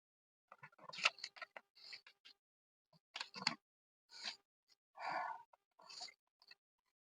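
Paper rustling and being creased and folded in short crackling bursts, about half a dozen, with brief pauses between.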